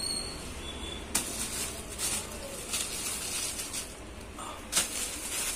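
Clear plastic packaging crinkling in a series of short rustles as plastic-wrapped fishing bags and rods are handled and lifted.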